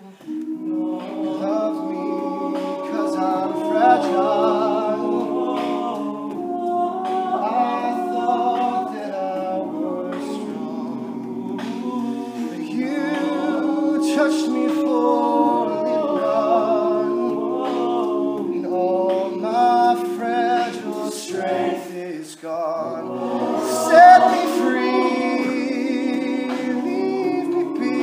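All-male a cappella group singing: the backing voices hold sustained chords while a solo voice carries the melody above them, with a brief dip about three-quarters of the way through.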